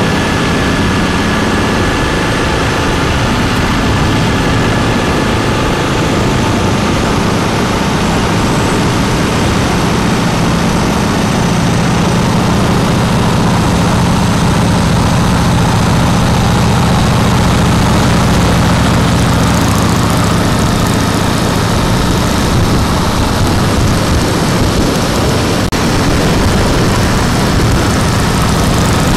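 Harley-Davidson FXSBSE Breakout's Twin Cam V-twin running through a Jekill & Hyde exhaust while cruising at steady speed, a crisp exhaust note holding an even pitch over road and wind noise.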